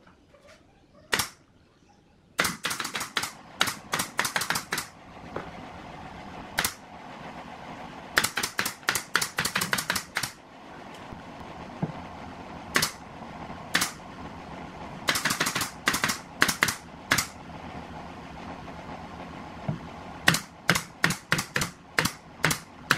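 Pneumatic nail gun driving nails into an MDF speaker-box panel. It fires in quick runs of sharp snaps, several a second, with short pauses between the runs.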